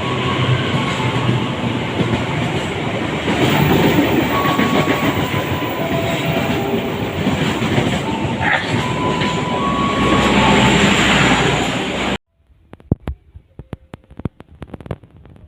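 Train passing close by, loud steady rumble and wheel noise on the rails, cutting off abruptly about three-quarters of the way in, after which there are only faint scattered clicks.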